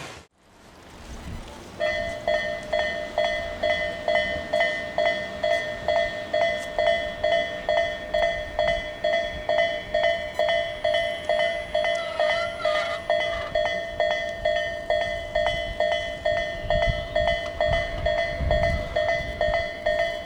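Japanese level crossing warning bell, Tobu Railway's 'Tobu A' electronic alarm tone, starting about two seconds in and then ringing steadily at a little over two strikes a second. A low rumble joins near the end.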